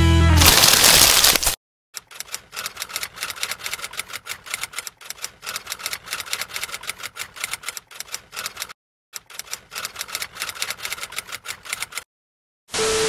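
Typewriter sound effect: rapid, uneven key clacks running for about ten seconds, with a short pause around the middle. Before it, music cuts off and a brief rush of noise passes, and a short steady tone sounds near the end.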